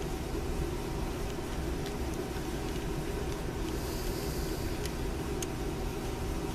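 Steady low hum of background noise, with a few faint light clicks from a screwdriver working small screws in a revolver's steel frame, and a brief soft hiss about four seconds in.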